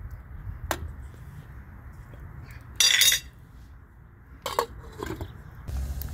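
A metal ladle and the pot's metal lid clink and clatter against a metal cooking pot. There is one loud clatter about halfway through and two lighter ringing knocks after it.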